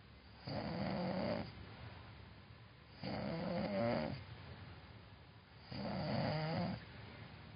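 Snoring: three long, rattly snores about every two and a half seconds, with quieter breathing between them.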